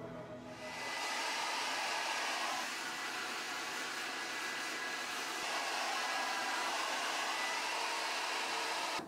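Handheld hair dryer blowing steadily, switching on about half a second in and cutting off abruptly near the end.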